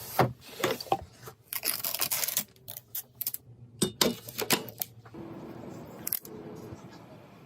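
Hands working with computer parts and their packaging: a run of sharp clicks and snaps mixed with short rustles, easing to a faint steady hiss about five seconds in.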